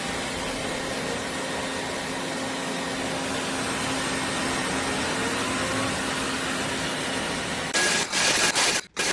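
Roborock F25 LT wet-and-dry vacuum-mop running with a steady whir. About eight seconds in it turns louder, with a couple of brief breaks.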